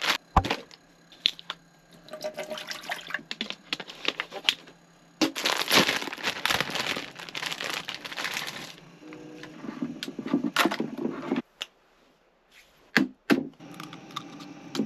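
Plastic instant-ramen packet crinkling and tearing as it is opened and handled. The crinkling is densest and loudest from about five to nine seconds in, then eases off, with a few sharp clicks near the end as a seasoning sachet is torn.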